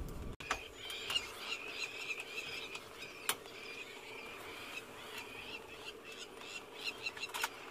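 Crowned lapwings calling over and over in high, shrill notes: alarm calls while mobbing a perched tawny eagle. Two sharp clicks cut through, about three seconds in and near the end.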